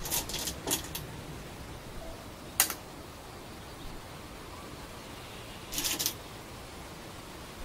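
Short sharp clicks over a steady hiss: a few in quick succession at the start, a single sharper, louder click about two and a half seconds in, and another quick cluster around six seconds in.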